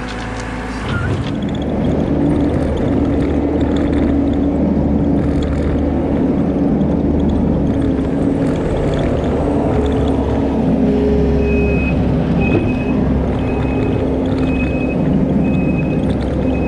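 Skid steer loader's diesel engine running steadily under load. From a little past halfway, a backup alarm beeps about once a second.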